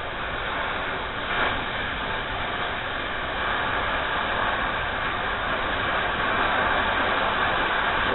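Cutting torch running with a steady hiss as it cuts a piece of steel plate.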